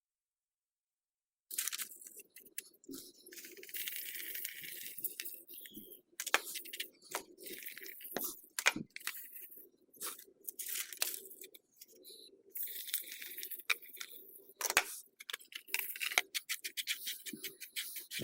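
Irregular clicks, knocks and rustling from objects being handled and fitted, starting after about a second and a half of silence.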